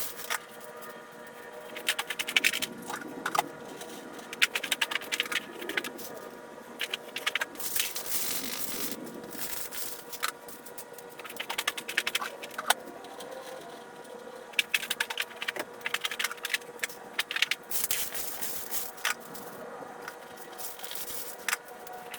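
Hands working with pots and planting gear: irregular scraping, clicking and rattling in clusters, over a faint steady hum.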